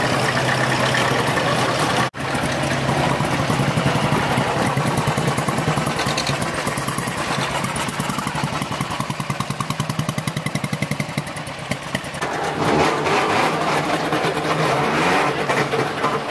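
Old vehicle engines idling, broken by a brief dropout about two seconds in; then a motorcycle engine idling close by with a rapid, even beat. The sound changes abruptly about twelve seconds in.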